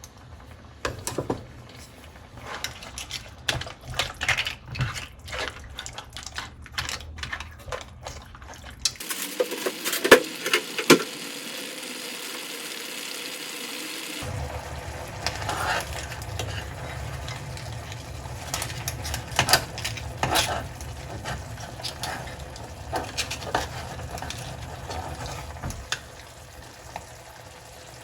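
Kitchen work sounds: dishes and utensils clinking and knocking, with about five seconds of running water from a sink about nine seconds in.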